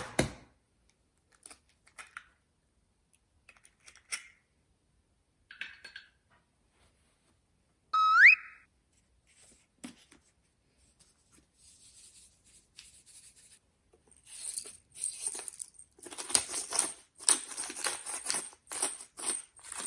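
Scattered small clicks and knocks of kitchen handling, a short rising tone about eight seconds in, then an uneven crackling from about fourteen seconds in.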